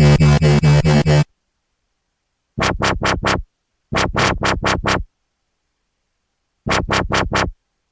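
Electronic dubstep-style synth sound effect in stuttering bursts. Each burst is a quick run of about five pulses a second, and the bursts are separated by gaps of silence.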